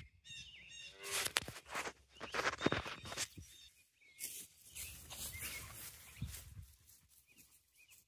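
Scraping and rustling bursts from a phone being handled and propped up against a block of wood, loudest in the first few seconds, with birds chirping faintly.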